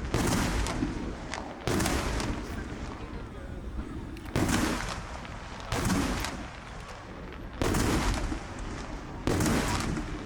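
Aerial firework shells bursting overhead: about six sudden booms, one every second and a half to two seconds, each trailing off in a rumbling echo.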